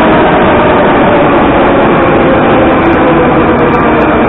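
Moscow Metro train running along the platform: a loud, steady rumble of wheels and motors, with a faint whine that slowly falls in pitch.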